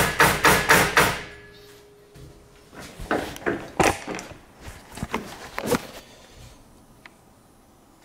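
A gloved fist pounding a steel fixture table about four times a second, rattling the aluminium TIG filler rods lying on it so they settle flat; the pounding stops about a second in with a brief ring. A few lighter clatters and scrapes follow.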